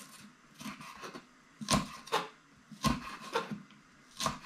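Kitchen knife slicing green onions at an angle on a cutting board: about eight separate, unevenly spaced cutting strokes.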